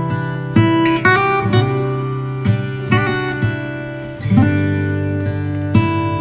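Background music: an acoustic guitar strumming chords, a fresh strum every half second to a second and a half.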